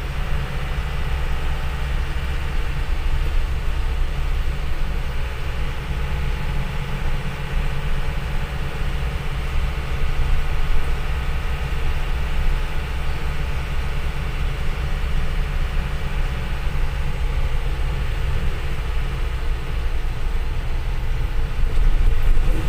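Isuzu Elf Giga minibus's diesel engine running steadily as the vehicle drives along, heard from inside the cab as a deep, even hum, a little louder near the end.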